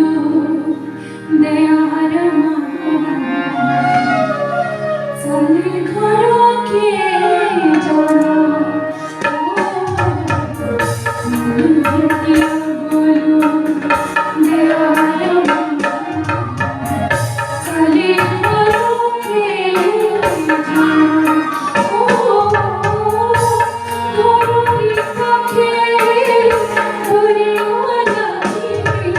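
Himachali Pahadi nati folk music: a bending melody line, with singing, over hand drums that join about ten seconds in and keep a steady rhythm.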